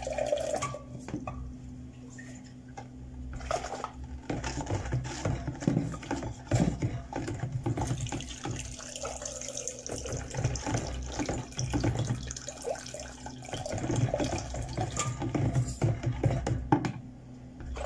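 Kitchen work sounds: repeated small knocks and clinks of dishes and a plastic jug lid being handled and dried, with water running from a tap at times and a steady low hum underneath.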